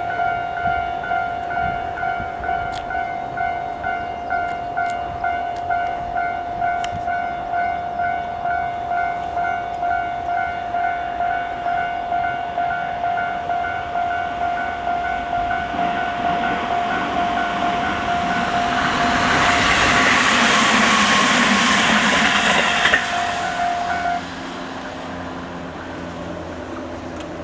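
Japanese level-crossing warning bell ringing its normal repeating tone while a Tobu 20400 series electric train approaches and runs over the crossing, growing loudest about 19 to 23 seconds in. The bell cuts off about 24 seconds in, soon after the train has passed.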